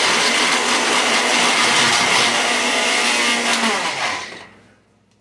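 Blender running loud, grinding graham crackers into crumbs, then switched off about four seconds in and spinning down to a stop.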